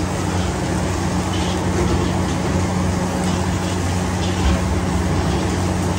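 Automatic fried rice machine running: a steady hum and rush from its motors and gas burners, with its metal stirring arms scraping faintly against the steel woks a few times.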